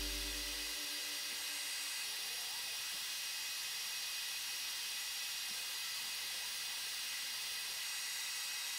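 Background guitar music fading out within the first second, then a steady, even hiss.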